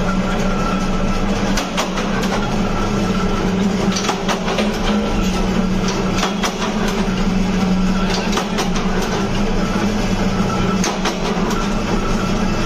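Power punch press running with a steady motor hum and repeated sharp clacks as its die punches drum bush shapes out of a sheet of old tyre rubber.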